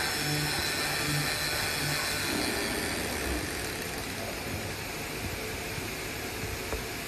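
AOKE DCZ70 CNC flatbed cutter running while cutting a sheet of ejection rubber: a hum that pulses on and off about twice a second for the first two seconds, then a steady hiss of machine noise.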